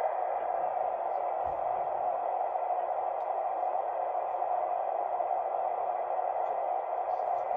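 Steady mid-pitched static hiss from a CB radio receiver's speaker: an open channel with no voice coming through.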